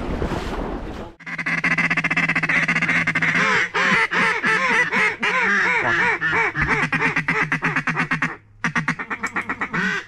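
Mallard duck call blown in a long, loud run of quacks, about four a second, starting about a second in; after a short break near the end comes a faster run of shorter quacks.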